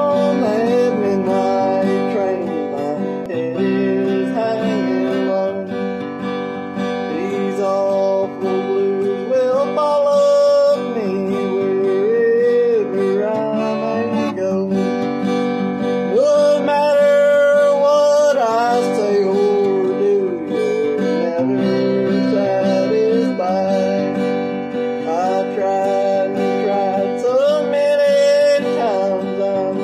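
A man singing an old-time bluegrass song while strumming a steel-string acoustic guitar with a pick.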